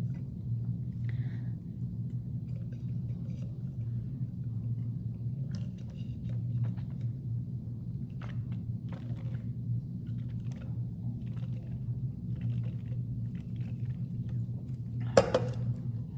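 A person sipping cold carbonated seltzer through a straw, with faint swallows and small mouth clicks over a steady low hum. One sharp, louder knock near the end.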